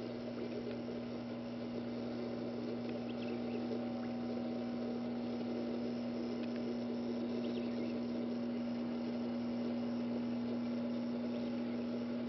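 A steady low hum, one constant pitch that does not change, over a faint even hiss.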